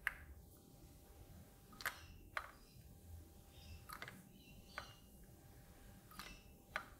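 Faint small clicks from hand-soldering IC socket pins on a circuit board with a soldering iron and solder wire. The clicks mostly come in pairs, a new pair about every two seconds, as the work moves from pin to pin.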